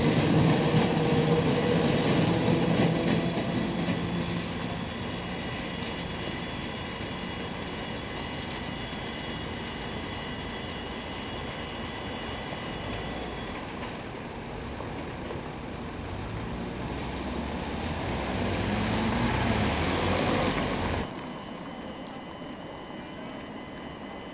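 Electric suburban train running at the platform, its motor hum and rail noise loud at first and then fading. Later a train's rumble on the rails swells, then cuts off suddenly about 21 seconds in.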